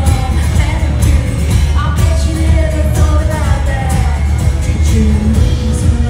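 Live amplified music: a woman singing a melody while strumming an acoustic guitar, with a heavy, booming low end.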